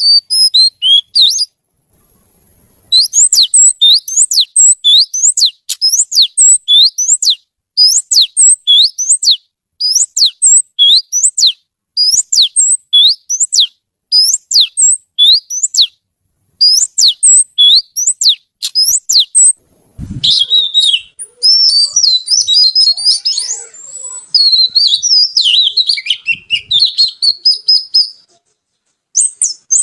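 Oriental magpie-robin singing loudly: phrases of quick, sharp whistled notes sweeping up and down, each phrase about a second long with short breaks between. About twenty seconds in, after a brief low thump, the song turns into a longer, more varied warbling run.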